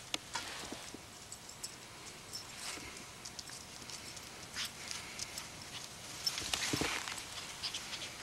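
A pug puppy and a Labrador retriever moving about on grass, with scattered short rustles and sniffing sounds, louder about six to seven seconds in as the Lab comes close.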